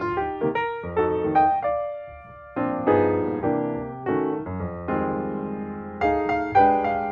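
Background piano music: chords and melody notes struck and left to fade, at a moderate pace.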